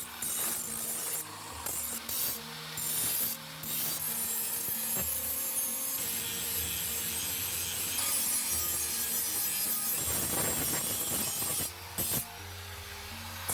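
Hand filing on a steel sickle blade: repeated rasping, scraping strokes of metal on metal, with brief pauses. Background music plays underneath.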